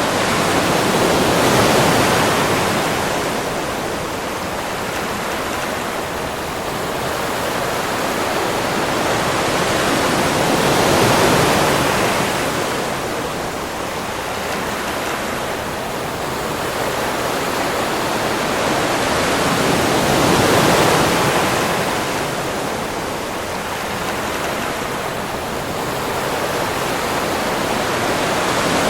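Ocean waves breaking on a beach: a continuous wash of surf that swells and eases about every ten seconds.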